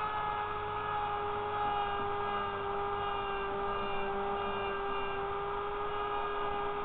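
Small handheld rotary tool running with a steady whine while a shaver cutter's edge is held against its spinning grinding bit, grinding off the cutter's tabs.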